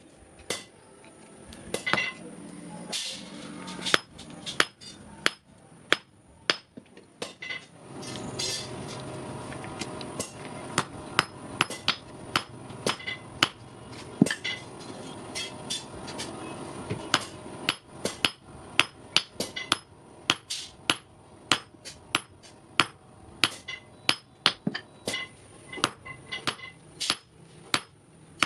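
Blacksmith's hammer striking metal on an anvil while forging an S hook, in a steady rhythm of about two blows a second, many with a short metallic ring. From about eight seconds in to about seventeen seconds in, a steady rushing noise runs under the blows.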